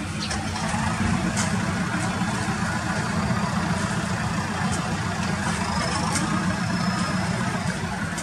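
Nepal Airlines Airbus A330's jet engines at taxi idle as the airliner rolls slowly past: a steady low rumble, with a faint high whine in the middle.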